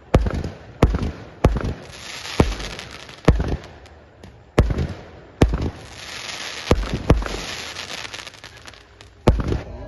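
Aerial fireworks bursting overhead: about ten sharp bangs at uneven intervals, with a dense crackling hiss between several of them.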